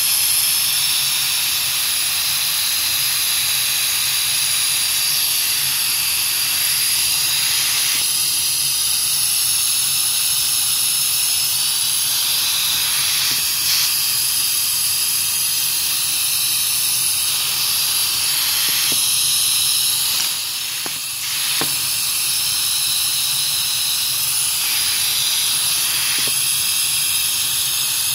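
Steady high hiss of air rushing through a vacuum pick-up (a porous vacuum chuck) as it holds and lifts a thin LED PCB strip. The hiss dips briefly about two-thirds of the way through, and a few faint ticks sound near then.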